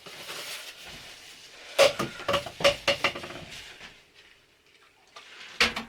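Clinks and knocks of hard objects being handled and set down on a work surface: a cluster of sharp knocks about two to three seconds in, then a quieter spell and two more knocks near the end.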